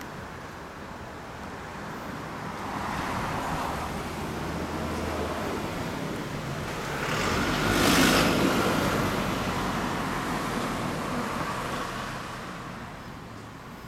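Road traffic: cars passing on the street, swelling and fading, with the loudest pass about eight seconds in.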